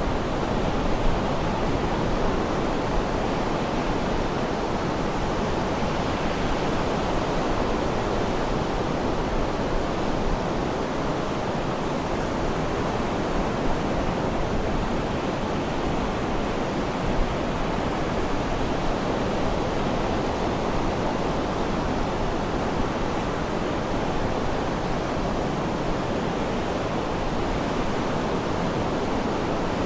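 Sea surf rushing in a steady, even wash of noise.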